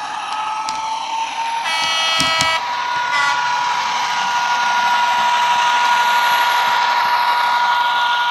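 Digital sound decoder playing a Class 67 diesel locomotive's engine through the model's small speakers: a steady engine note with a whine that swells as the model approaches. A horn blast sounds about two seconds in, followed by a short second toot about a second later.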